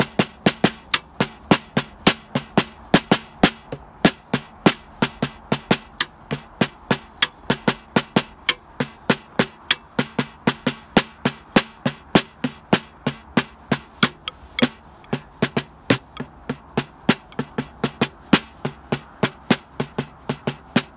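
A drum struck with wooden drumsticks in a steady run of single hits, about three to four a second, some hits louder than others.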